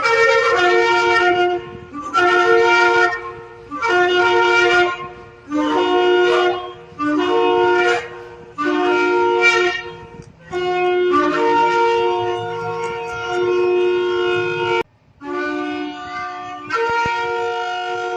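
Shofar (ram's horn) blown in a series of about ten blasts, each lasting one to two seconds and stepping up from a lower note to a higher one. A longer, held blast comes in the second half.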